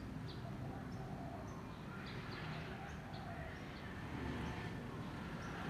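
Airbus A319 jet airliner passing high overhead, heard as a faint, steady low rumble. Short, high bird chirps repeat about once or twice a second.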